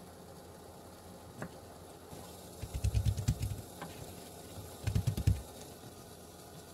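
Hands patting and pressing paper towel down onto sliced tofu on a wooden cutting board to blot off the water: two runs of quick, soft thumps, with a single light tap before them.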